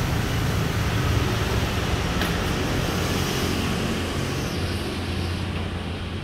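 Steady road traffic noise from passing vehicles, a low engine rumble with hiss above it, easing a little near the end. A faint click sounds about two seconds in.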